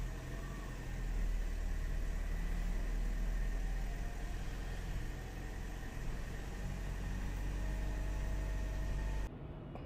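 A large vehicle engine running steadily with a deep rumble and a faint steady whine above it; it cuts off suddenly near the end.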